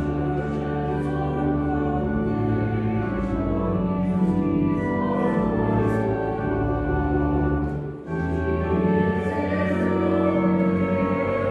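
Organ playing slow, held chords, with a brief break about eight seconds in before the next phrase begins.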